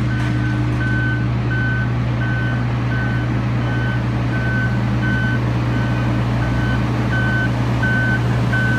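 Backup alarm beeping steadily, about one beep every 0.7 s, over the loud continuous drone of heavy diesel equipment milling asphalt pavement.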